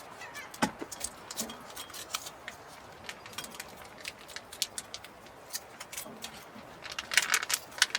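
Irregular light clicks and clinks of small hard objects being handled, with a quick flurry of them about seven seconds in.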